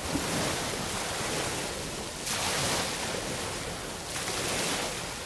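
Small waves washing up and back over a pebble beach. The wash swells about two seconds in and again about four seconds in.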